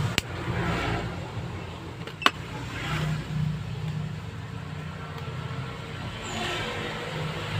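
Motor vehicle engines running steadily, like road traffic, with a sharp click about two seconds in.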